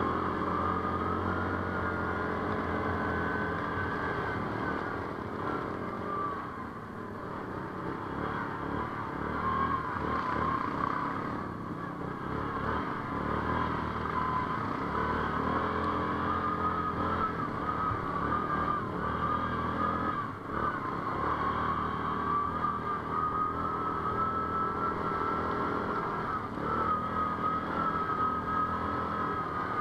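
ATV engine running under load while riding off-road, its pitch rising and falling with the throttle.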